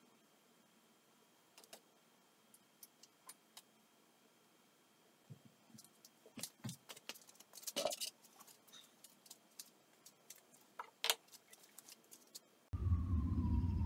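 Sparse light clicks and small metallic knocks from a tandem bicycle being handled, with a cluster of louder knocks about eight seconds in. Near the end the sound cuts abruptly to a louder, steady low rumble.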